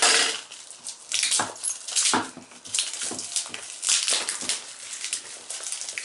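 Plastic wrapping and tape crinkling and tearing as a small wrapped box is pulled open by hand: a run of irregular crackly rustles, the loudest right at the start.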